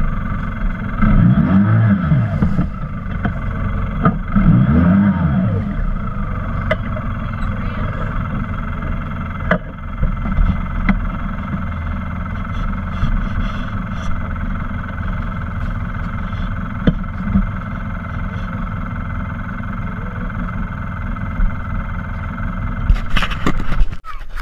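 Polaris RZR 800 side-by-side's twin-cylinder engine idling, revved up and back down twice in the first few seconds, then idling steadily, with a few sharp clicks.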